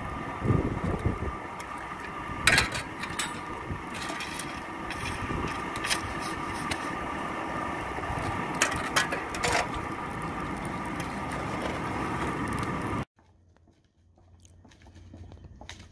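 Forge fire burning hard around an iron wheel tyre being heated for shrinking: a steady rush with a hum through it, and a few short scraping knocks as the fire is worked with a poker. Near the end it drops suddenly to a much quieter background.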